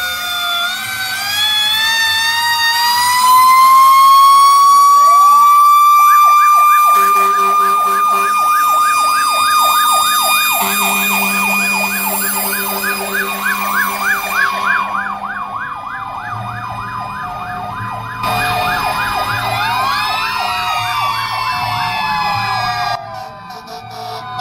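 Fire truck sirens: a wail rising in pitch and holding for several seconds, then a fast yelp warbling up and down for about twelve seconds, with further rising and falling sweeps near the end. A low steady tone comes in twice during the yelp.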